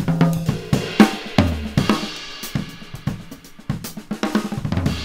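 Gretsch drum kit with Meinl cymbals played in a groove: snare, hi-hat and cymbal hits, with deep bass drum thumps about a second and a half in and near the end. It is the raw single overhead microphone track, soloed and run through a compressor plugin while the compression is being set.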